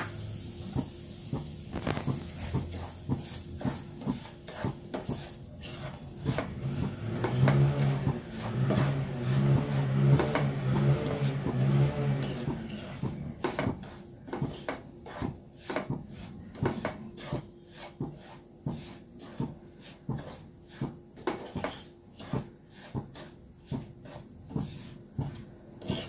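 Wooden spatula scraping and stirring semolina roasting in ghee in a nonstick pan, in repeated strokes about two a second. A low hum sounds for a few seconds near the middle.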